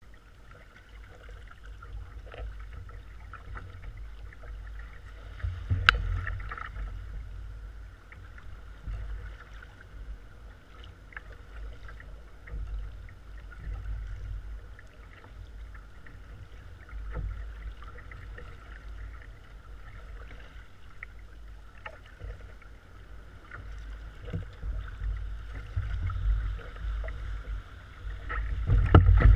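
Sea kayak being paddled through chop: water splashing from the paddle strokes and slapping the hull over wind rumble on the microphone. A sharp knock comes about six seconds in, and the wash of water grows louder near the end as the kayak runs in through broken surf.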